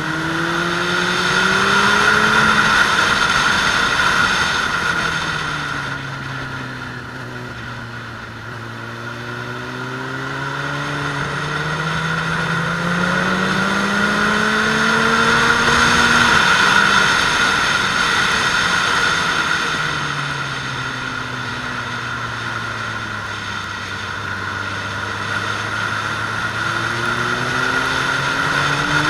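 Suzuki Bandit 600S's inline-four engine under way, revs climbing to a peak a couple of seconds in and again around the middle, falling back in between as the bike slows for bends, and climbing once more near the end. Wind rushes steadily past.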